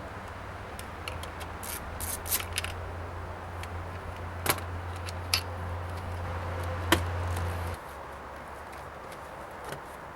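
Sharp plastic clicks and knocks from working loose the fasteners of a GMC Yukon's front door trim panel, over a low steady hum that stops suddenly about eight seconds in.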